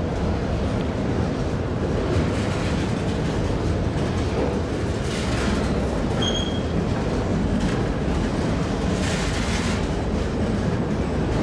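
Empty autorack freight cars rolling past at street level: a steady low rumble of steel wheels on rail. A brief high squeak comes about six seconds in.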